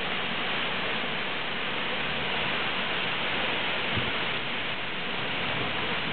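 Heavy thunderstorm rain pouring steadily, hissing as it splashes on the paving and grass. There is a brief low bump about four seconds in.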